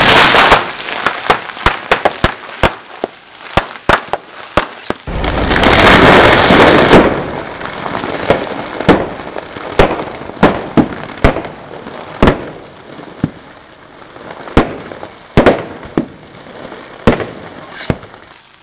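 Sealed plastic packs of kerupuk crackers bursting one after another under a car tyre: a long irregular string of sharp, loud pops ("cetak cetak cetak"), with a louder noisy rush lasting about two seconds about a third of the way in.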